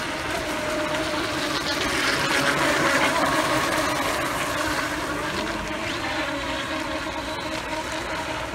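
Pro Boat Recoil brushless electric RC racing boats running flat out, their motors giving a steady whine over the hiss of water spray. The sound swells to its loudest about two to three seconds in as one boat passes close.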